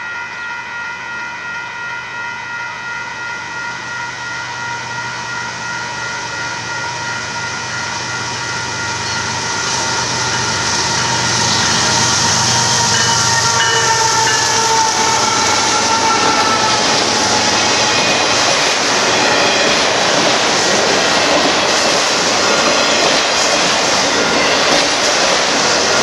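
Railroad crossing bell ringing steadily while a Union Pacific freight train approaches. From about ten seconds in, the diesel locomotive and the enclosed auto rack cars pass, and the steady loud rush and clatter of steel wheels on rail grows to drown the bell.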